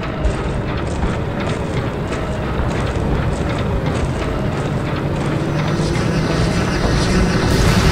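Battle sound effects in a 3D animation: a steady mechanical drone of vehicles or aircraft that slowly grows louder, with many sharp clicks scattered through it.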